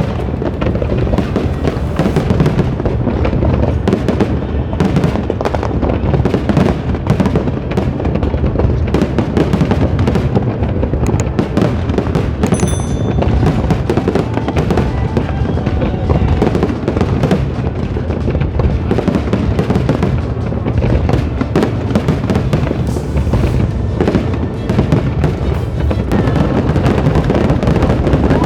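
Big fireworks display going off continuously: a dense, rapid run of bangs and crackling shell bursts, with music underneath.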